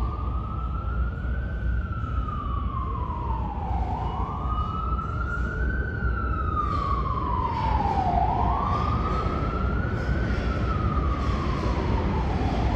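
An emergency vehicle's siren in its wail, slowly rising and falling about every four seconds, three times over, above a steady low rumble.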